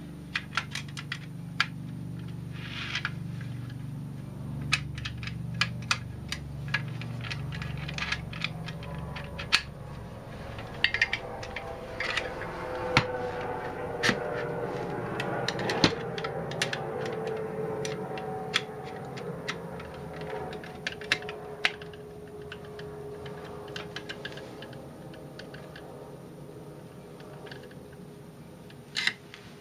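Clicks and light clatter of small aluminium machine parts and a screwdriver being handled during assembly of a mini milling machine kit, with a helicopter flying over in the background.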